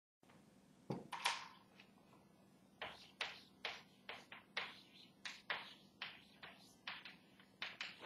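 Chalk tapping and scraping on a blackboard as a word is written, a quick run of short sharp strokes a few per second. A couple of louder knocks come about a second in.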